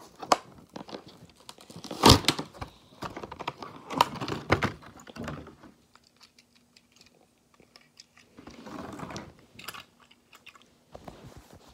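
Clear plastic toy packaging crinkling and crackling as it is pulled open and a die-cast toy truck is worked out of it. The crackles come in uneven bursts, the sharpest about two seconds in. The sound dies down around six seconds and returns briefly near nine seconds.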